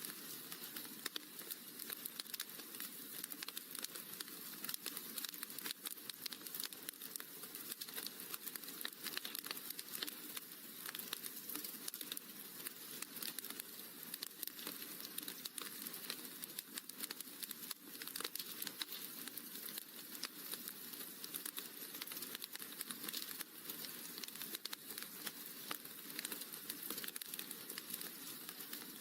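Wood fire crackling in a fireplace: a steady, dense stream of small pops and snaps over a soft hiss.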